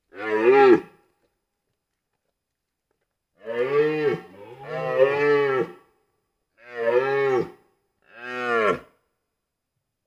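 Red deer stag roaring during the rut: five deep calls, the second and third run close together, with silent gaps between them.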